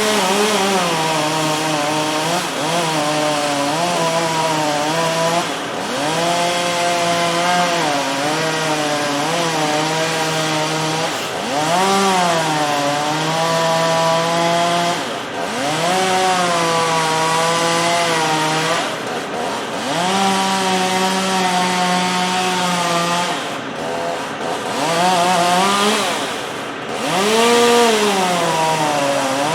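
Chainsaw cutting pine, its engine note held lower while the chain bites and revving up and back down several times between cuts.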